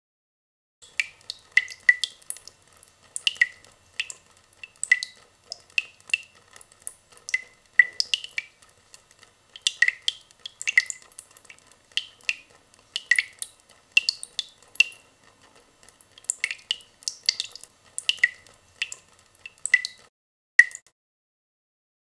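Fast water drips from a tap falling into water in a plastic basin, unprocessed: an uneven run of short, bright plinks, roughly one or two a second, sometimes two close together. The drips stop shortly before the end, and a single drip follows.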